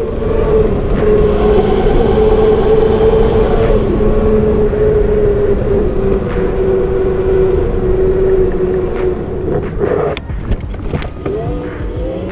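Electric pit bike's 72 V, 3000 W motor and chain drive whining at speed over rushing wind noise. The whine holds one steady pitch, sagging slightly, and cuts out about ten seconds in. It rises again near the end as the bike accelerates.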